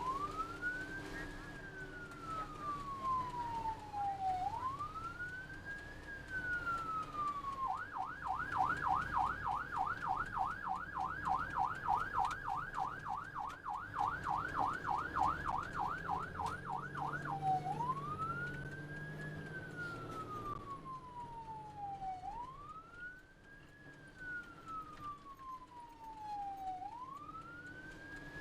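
Ambulance's electronic siren sounding a slow wail, rising and falling about every four to five seconds. About a quarter of the way in it switches to a fast yelp, about three sweeps a second, for some ten seconds, then goes back to the wail. The ambulance's engine and road noise hum underneath.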